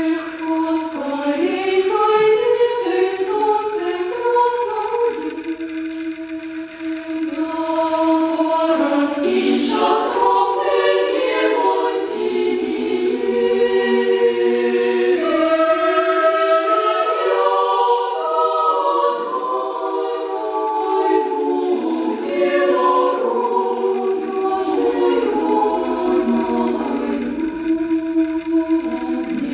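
Women's choir singing a Russian folk song a cappella in several parts, holding chords, with crisp consonants. The singing softens briefly about six seconds in, then swells again.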